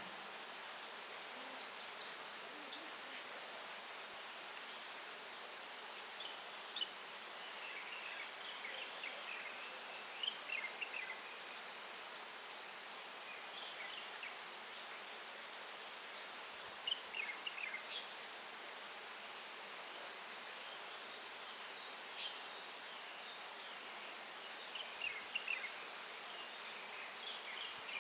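Steady high-pitched insect buzzing over an even outdoor hiss. Every few seconds small birds break in with short clusters of quick chirps.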